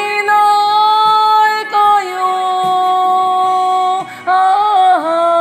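A woman singing a slow Korean ballad over soft musical accompaniment. She holds two long notes, then sings a short wavering, ornamented turn that settles into another held note near the end.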